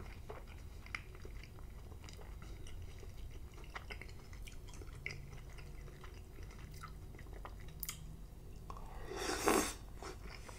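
Close-miked chewing of slimy cooked spinach: many small wet mouth clicks and smacks, with one louder, longer wet noise near the end.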